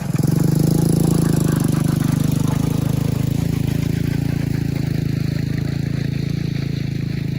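Four-wheeler (ATV) engine running steadily while pulling a drag to grade a dirt driveway, a little louder in the first couple of seconds, then even.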